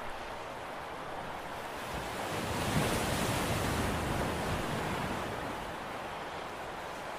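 Sea water washing against the concrete tetrapods of a harbour breakwater: a steady wash, with one wave swelling up about two seconds in and ebbing away by about six seconds.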